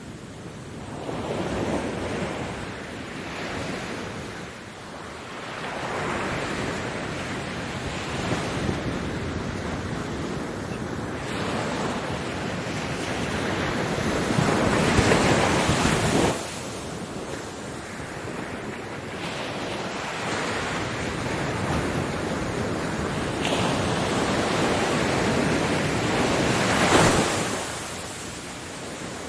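Ocean waves breaking and washing up on a beach: a continuous rushing that swells and ebbs with each wave. The biggest surges come about halfway through, ending abruptly, and again near the end.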